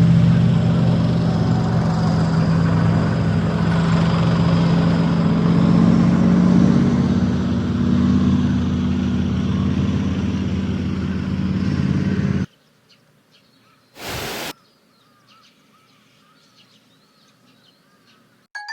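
A vehicle engine running steadily, then cutting off suddenly about twelve seconds in. After that, faint bird chirps outdoors, with one short burst of noise about a second and a half later.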